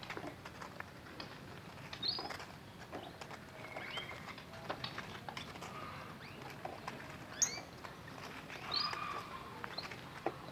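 Small caged birds giving short chirps every second or two, with scattered light taps and clicks.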